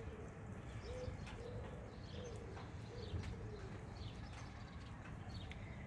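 A dove cooing faintly: a few short, low coos in the first three seconds. Light rain falls with scattered faint drips.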